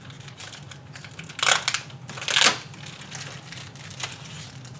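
Clear plastic packaging sleeve crinkling in two short rustles less than a second apart, as it is handled to get the glare shields out. A low steady hum runs underneath.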